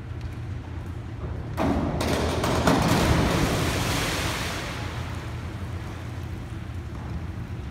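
A springboard diver entering the pool: a splash starts suddenly about a second and a half in, peaks, then washes on and fades away over the next two seconds or so, over a steady low hum.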